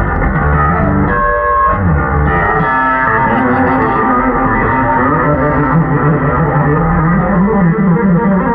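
Electric bass solo, amplified and loud, played as fast runs of notes. About a second in, the low end drops out for half a second while a few high notes ring on, then the runs resume.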